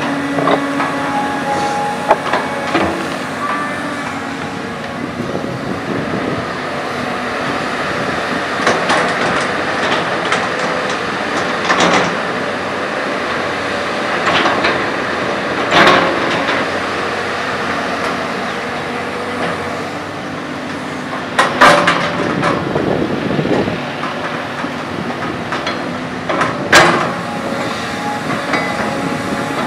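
CAT 320D hydraulic excavator working: the diesel engine runs under load with a steady hum from the hydraulics, and a few sharp metallic clanks from the bucket and boom as it digs and dumps soil.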